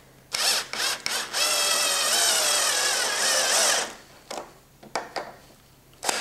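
Cordless drill driving a wood screw into a wooden block: a few short bursts, then a steady run of about two and a half seconds whose whine drops a little in pitch toward the end. A few short clicks follow.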